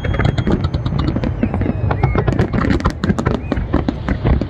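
A dense string of firecrackers going off in a rapid, irregular run of sharp cracks, many a second, over a low rumble. A few faint whistling tones slide through it.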